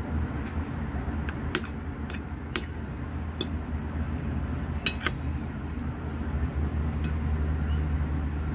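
Metal spoon and fork clinking and scraping against a ceramic soup bowl and plate during a meal, several sharp clinks with a quick cluster about five seconds in, over a steady low hum.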